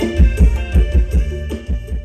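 Mor lam dance music from a rot hae live band: a fast, even beat of low drum hits that drop in pitch, about four a second, under steady keyboard-like tones. It gets quieter near the end.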